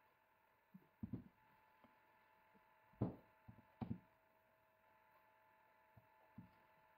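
Scattered soft knocks and thuds of a wooden spatula against a glass bowl as sticky dough is scraped out onto flour, the loudest two about three and four seconds in. A faint steady hum lies underneath.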